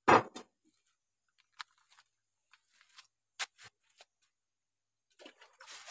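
Two dogs eating rice from a metal bowl and a plate: scattered sharp clicks and chewing noises, with a loud knock at the very start and a short rustling stretch near the end.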